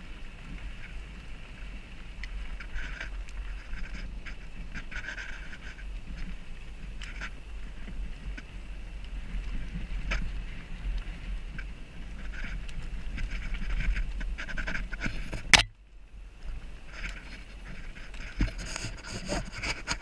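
Mountain bike riding over a dirt trail, heard from a helmet-mounted GoPro: steady wind rumble on the microphone with tyre crunch and irregular clicks and rattles from the bike. A single sharp knock comes about three-quarters of the way through.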